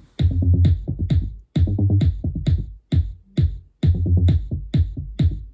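KEF C15 bookshelf speakers playing an electronic track with a drum-machine beat and a strong bass line.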